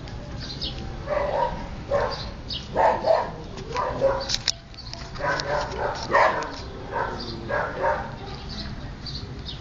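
Husky puppies play-fighting, giving a run of short yips and barks from about a second in to near the end.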